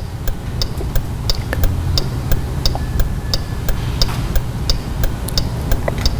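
Hazard flashers ticking steadily, about three clicks a second, over a low steady hum.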